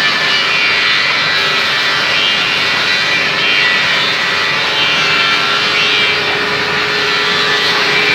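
Floor sanding machine with a hydraulic drive running steadily: a loud, even hiss with a constant hum beneath it.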